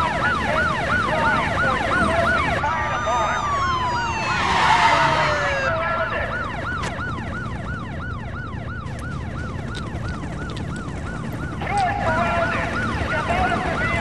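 Several emergency-vehicle sirens yelping in fast, overlapping rising-and-falling sweeps, about three a second. About three to six seconds in, a tone glides steadily downward over a rush of noise, the loudest moment.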